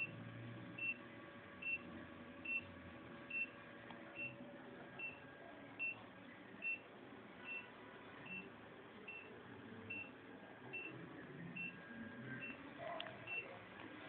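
Electrocardiograph monitor giving a short high beep with each detected heartbeat, evenly spaced a little over once a second, a steady rhythm of about 72 beats a minute.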